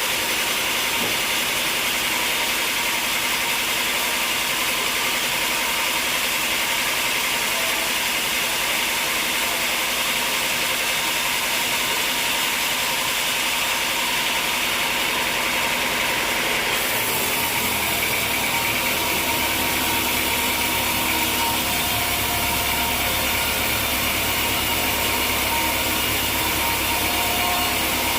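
Sawmill machinery running with a steady mechanical noise. About two-thirds of the way through, the sound changes: the hiss thins and a low hum comes in.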